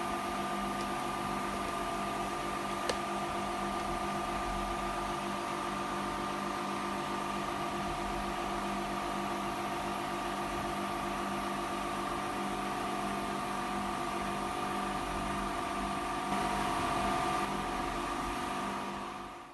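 Steady electrical hum with fan noise from a running bench machine, several fixed tones over a hiss. There is one small click about three seconds in, and it grows slightly louder near the end.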